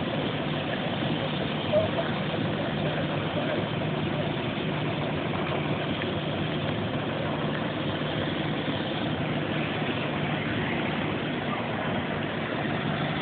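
Fire truck engine idling steadily, a constant low hum under an even rushing noise.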